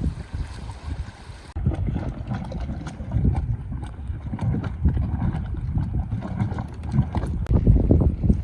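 Wind buffeting the microphone outdoors: an irregular low rumble of gusts.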